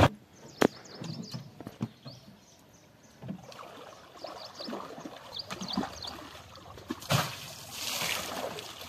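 Muddy floodwater sloshing and splashing around a person wading knee-deep, with a sharp knock just after the start and louder splashes about seven seconds in.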